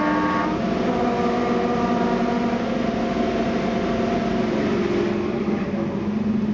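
The twin Napier Deltic two-stroke diesel engines of a Class 55 Deltic locomotive working hard on full power, heard from the cab in a tunnel. The end of a horn note stops about half a second in. The harsh upper hiss drops away about five seconds in as the locomotive runs out of the tunnel.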